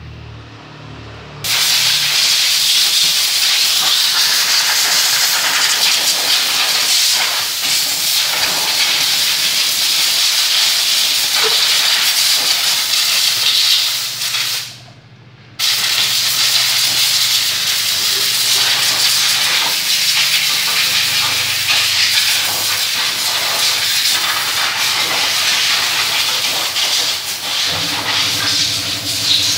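Compressed air hissing steadily from a blow gun on a coiled air hose as it blows water off a washed dirt bike. It cuts out for about a second midway, then starts again.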